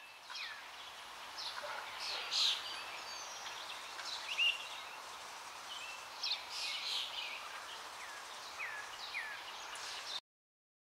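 Outdoor ambience of many birds calling, short chirps and quick falling whistles over a steady hiss. It cuts off abruptly near the end.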